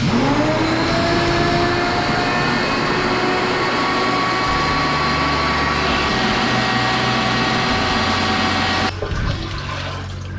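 Suction machine pulling standing sewage water out of a blocked drain line: its motor whine rises as it spins up, runs steadily with the rush of sucked water, then cuts off about nine seconds in.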